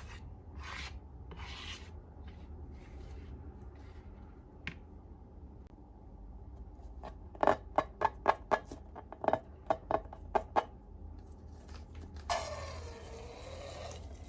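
Slime-making handling sounds: soft rubbing and scraping strokes, then a quick run of about ten sharp clicks or snips past the middle, and a short swish near the end.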